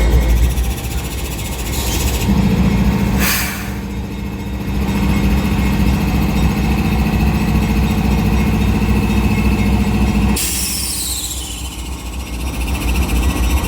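Diesel freight locomotives running with a steady heavy low rumble. A steady low drone holds for several seconds, with a brief hiss about three seconds in. Near the end a high whine falls away in pitch.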